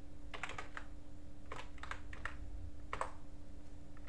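Computer keyboard being typed on, keystrokes coming in short bursts of a few clicks with pauses between, over a faint steady hum.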